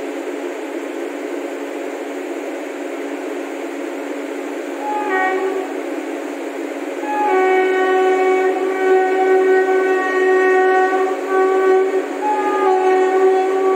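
Train horn sounding as a train approaches: one short blast about five seconds in, then a long, steady blast from about seven seconds in that breaks off briefly and goes on, over the steady running noise of the train.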